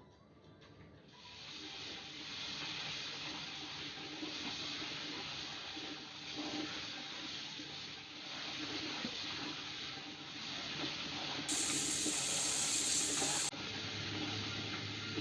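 Water running from a kitchen tap into a sink, starting about a second in and running steadily, as mushrooms are washed under it.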